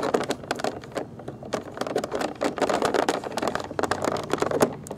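Clear plastic blister packaging crackling and clicking in quick, irregular bursts as hands work at it, with steel scissors going at a wire twist-tie holding a toy figure in the tray.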